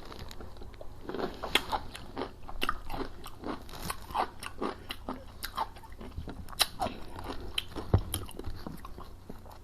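Close-miked eating noises: a person chewing and biting food with irregular crunches and mouth smacks, several a second.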